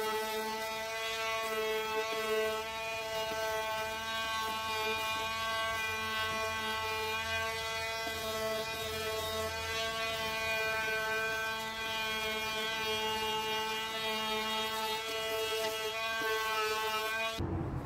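Electric detail sander with a triangular pad running steadily, with a high buzz, while sanding back paint on a wooden cupboard door. It cuts off suddenly near the end.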